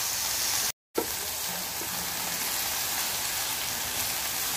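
Sliced onions with crushed ginger and garlic sizzling steadily in hot oil in a frying pan, stirred with a wooden spatula. The sound cuts out for a moment just before a second in.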